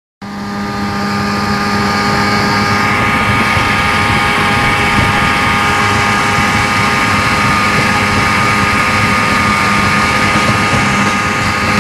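8 hp Johnson outboard motor running at a steady speed, driving a RIB along at planing pace.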